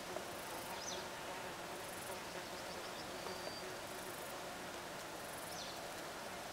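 Faint steady buzzing of flying insects, with a brief high chirp about a second in and another near the end.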